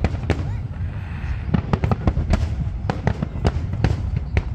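Aerial fireworks going off: an irregular string of sharp bangs and crackles, several a second, over a steady low rumble.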